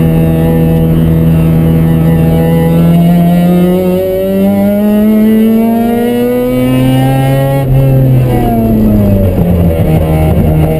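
Mazda RX-7's two-rotor rotary engine heard from inside the cabin under track driving. It holds a steady note, then the revs climb for several seconds. About eight seconds in the note breaks off sharply, the revs fall away, and it settles back to a steady note.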